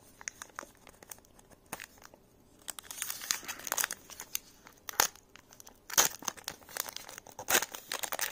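Foil trading-card pack wrapper crinkled and torn open by hand: a few small crackles at first, then dense crinkling from about three seconds in.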